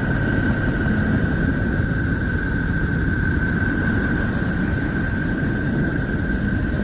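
A steady, dense low rumbling drone with a constant high tone held above it, and a fainter, higher tone joining about three and a half seconds in. It is presented as the 'sound of Neptune', the kind of eerie space-sound recording made from spacecraft data.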